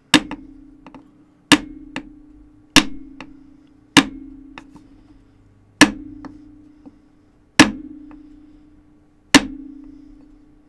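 Petrified Fish Mini Beluga folding knife whacked spine-first against a hard surface seven times, about every one and a half to two seconds. Each hit is a sharp knock followed by a short ringing hum. It is a spine-whack test of the blade lock, which holds solid despite its early lockup.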